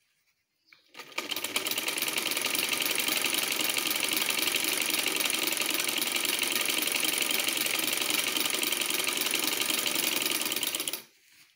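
Sewing machine running steadily, stitching a seam through layered cotton fabric. It starts about a second in, keeps an even fast stitching rhythm, and stops abruptly shortly before the end as the seam is finished.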